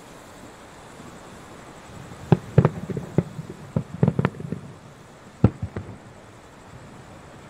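Aerial firework shells bursting: a quick run of sharp bangs starts about two seconds in, with one more loud bang a second later and a few softer pops after it, over a faint steady hiss.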